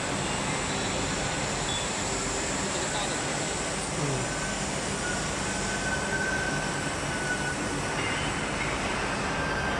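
Steady factory-floor background noise with machinery running.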